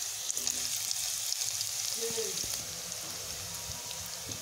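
Sliced onions sizzling in hot oil in a kadai: a steady hiss with many small crackling pops, the onions just added to the oil.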